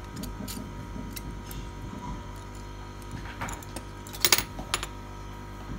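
Light clicks and taps of a tablet and its loose display panel being handled, with a sharp cluster of clicks about four seconds in and one more just after, over a steady electrical hum.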